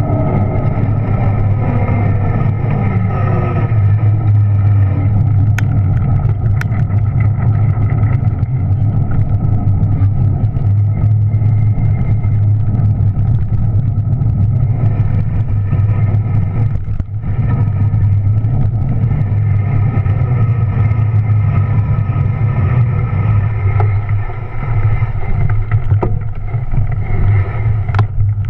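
Electric bike motor whining steadily while riding, its sound carried through a rigid aluminium handlebar camera mount, over a low rumble of wind and tyres. The whine dips briefly about two-thirds of the way through.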